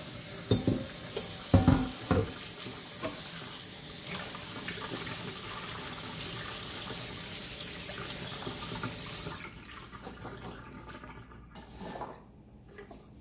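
Kitchen faucet running onto diced raw potatoes in a stainless steel colander as they are rinsed, with a couple of loud metal clanks near the start. The water shuts off about nine and a half seconds in, followed by soft sounds of the potatoes being tipped into a plastic container.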